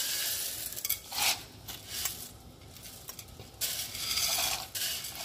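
Dry pasta and a pot being handled while the pasta goes into boiling salted water, heard as several bursts of rustling and clattering noise.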